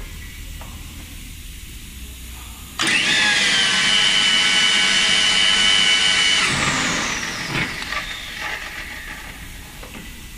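Electric motor and gearbox of an RB-32 rebar bending machine switching on suddenly about three seconds in and running with a steady high whine while the turntable bends a steel reinforcing bar. About three and a half seconds later it shuts off and winds down, falling in pitch.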